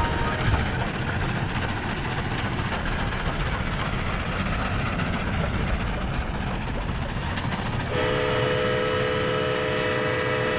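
Steam locomotive running with a steady, heavy rumble and rail noise; about eight seconds in, its whistle starts blowing a steady chord of several tones at once and holds it.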